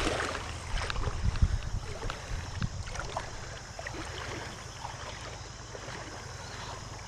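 Steady rush of flowing creek water with a low wind rumble on the microphone. A few knocks and clicks come in the first three seconds.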